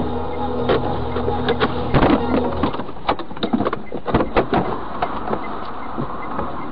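Car interior noise: a steady engine and road hum that drops away about two and a half seconds in, with irregular knocks and rattles scattered through the middle.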